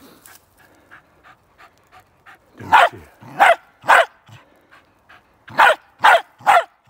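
Smooth fox terrier bay-barking at a raccoon dog: six loud barks in two bursts of three, the first burst starting about two and a half seconds in, with faint short sounds before.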